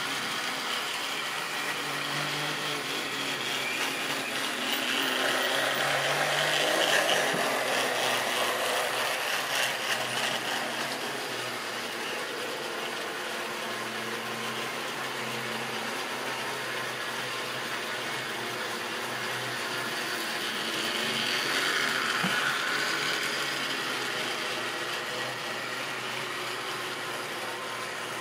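Model railway train running on the layout: the whir of a small electric locomotive motor and the rattle of freight wagon wheels over the track joints. It gets louder twice, once about a quarter of the way in and again about three-quarters of the way in, as the train passes close by.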